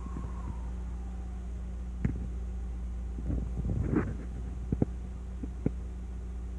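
Abnormal noise from a MINI F56: irregular clicks and knocks over a steady low hum, with a cluster of them about three to four seconds in.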